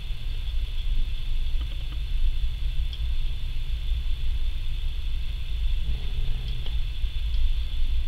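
Dell Precision WorkStation 350 desktop computer running during boot, its cooling fans giving a steady low hum with a thin high tone above it, and a few faint ticks.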